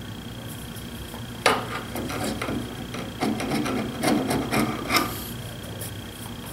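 Dried wood glue being scraped off the bar of a Bessey K-Body clamp with a hand scraper: a series of short, rough back-and-forth strokes starting about a second and a half in and stopping about five seconds in.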